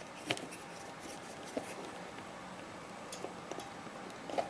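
Handling noise from the dismantled dictation machine's parts: a few light, sharp clicks and soft scraping as its circuit boards and controls are moved by hand.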